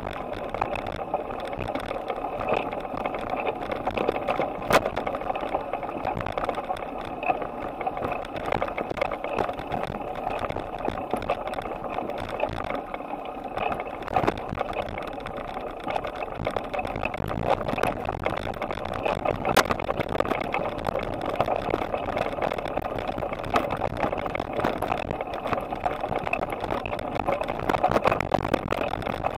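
Ride noise picked up by an action camera mounted on a bicycle's handlebars: a steady rush with many small knocks and rattles from road vibration.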